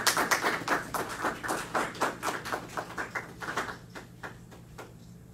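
A small group of people clapping their hands, the applause thinning out and stopping about five seconds in.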